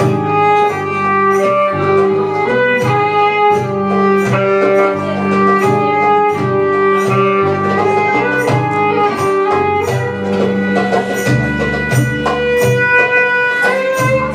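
A small live band playing belly dance music: a violin carries a held, sustained melody over plucked strings and bass guitar, with a steady beat of sharp ticks about twice a second.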